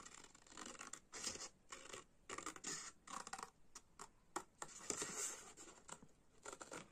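Scissors cutting through thin patterned card in an irregular string of short, faint snips and scrapes.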